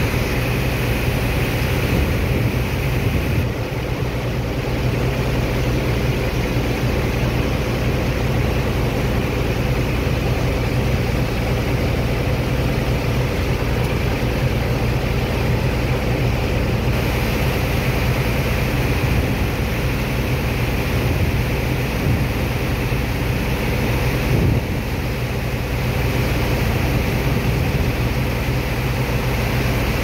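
Dredger pump machinery unloading sand from a barge, running with a steady low hum, over the constant rush of a high-pressure water jet washing the sand toward the suction pipe.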